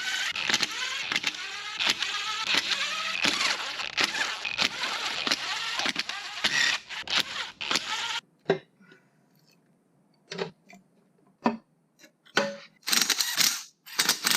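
Tools and metal engine parts clattering and clicking over a dense background of sound that cuts off abruptly about eight seconds in, followed by scattered light metal clinks and a short noisy burst near the end.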